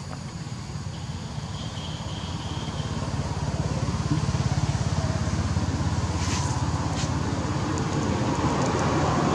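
Low engine rumble of a motor vehicle, growing louder over the first few seconds and then holding steady.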